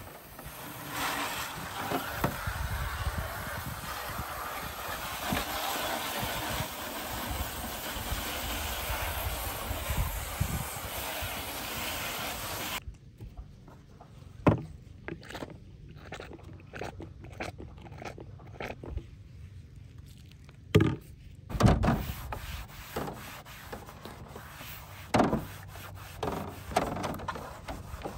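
Water spraying from a garden hose nozzle onto a plastic cutlery drawer tray, steady for about twelve seconds and then cut off suddenly. After that come a few sharp knocks of the plastic tray being handled and the scrubbing of a sponge over the soapy tray.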